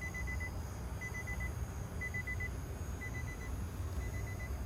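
Infiniti G37's electronic warning chime: a rapid group of about four short high beeps, repeating once a second, over a steady low rumble.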